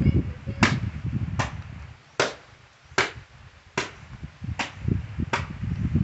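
Wooden laundry paddle (palo-palo) beating wet clothes on a concrete slab: about seven sharp slaps at an even pace, a little under one a second.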